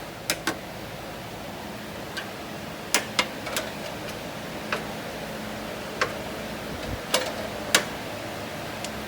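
Hand tools and metal parts clinking and knocking during work on the engine mounts: about a dozen sharp, irregularly spaced clicks, over a steady low hum.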